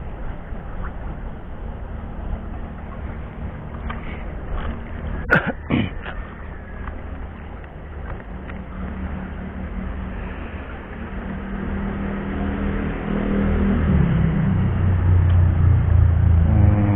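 A motor engine running steadily, growing louder over the last five seconds as its pitch shifts. There is one short, sharp sound about five seconds in.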